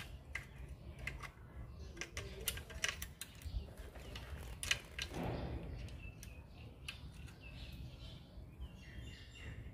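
Faint, scattered metallic clicks and clinks of small wrenches on the valve adjuster and its 8 mm lock nut on a Honda GX35 engine's rocker arm, as the lock nut is snugged down while setting the exhaust valve clearance.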